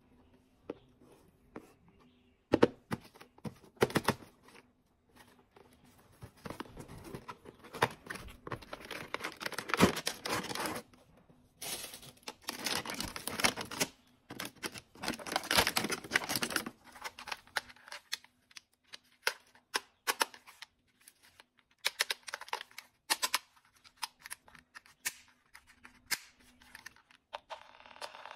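Packaging being handled: a cardboard box being opened and a clear plastic blister tray crackling, with clicks as two toy walkie-talkies are pried out of it, in bursts of rustling. Near the end the walkie-talkies are switched on and a steady electronic tone starts.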